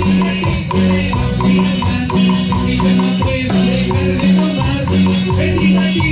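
Live cumbia band playing: a bouncing bass line and keyboard notes over steady Latin percussion with a rattling shaker-like rhythm.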